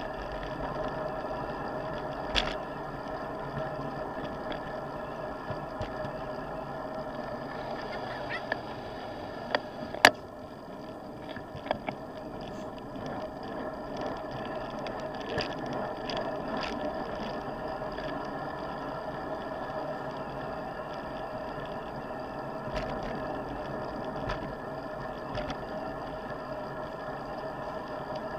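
Road bike riding along a paved cycle path, heard from a camera on the bike: a steady hum of tyres and wind with a few sharp knocks and rattles, the loudest about ten seconds in.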